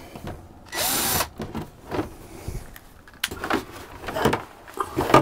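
A power drill/driver runs in one short burst about a second in, backing out a screw in a fibreglass overhead panel. Scattered knocks and clicks follow as the loosened panel is handled and pulled down by hand.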